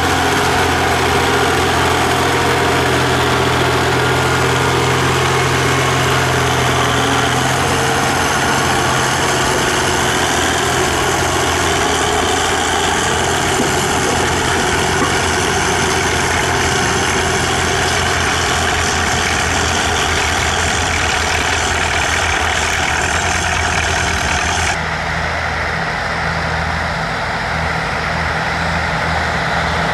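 Tractor engine running steadily at idle. Near the end the sound changes abruptly to a slightly quieter engine note with less hiss.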